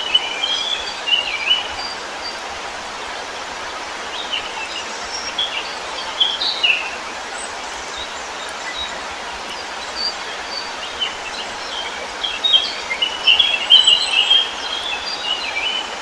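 Small songbirds chirping and warbling in short phrases, busiest near the start and again in the last few seconds, over a steady rushing background noise.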